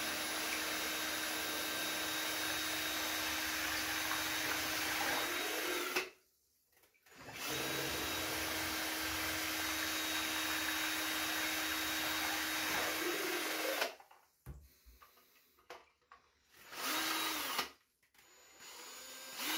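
Ryobi drill spinning a 3D-printed jet-pump impeller underwater, running steadily with a whine over churning water. It stops for about a second around 6 s in, runs again until about 14 s, then gives only short bursts. The drill spins at most 1600 RPM, far too slow for a jet drive, and the test is a failure.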